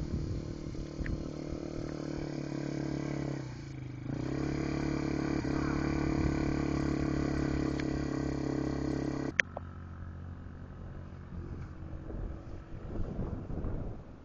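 Small youth ATV engine running steadily, its pitch dipping briefly and picking up again about four seconds in as it comes closer and louder. About nine seconds in the sound drops off abruptly, leaving the engine faint and distant with some wind.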